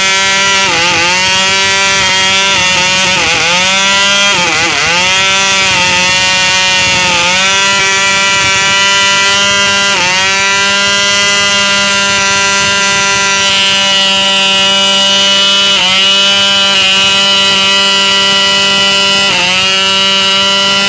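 FROG 249BB model diesel engine, a small two-stroke, running at high speed on a nylon 9x4 propeller with a steady high-pitched buzz. Its pitch sags briefly and recovers about seven times, for example about one, three, five, ten, sixteen and nineteen seconds in.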